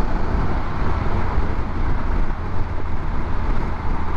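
Wind and road noise from a 2021 Harley-Davidson Pan America riding at highway speed, with a steady low drone underneath.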